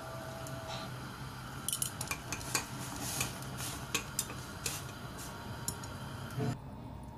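A utensil clinking and tapping against a stainless-steel saucepan in a quick, irregular run of sharp clicks from about two to five seconds in, as a block of instant noodles is loosened in boiling water.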